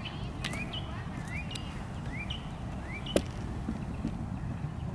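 A bird calling in a series of short, rising chirps over a steady low rumble, with one sharp click a little over three seconds in.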